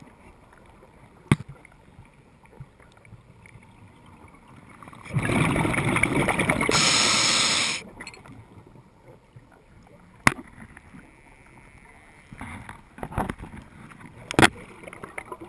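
Scuba diver's regulator underwater: one long burst of exhaled bubbles about five seconds in, lasting a couple of seconds, with quieter stretches around it and a few sharp clicks scattered through.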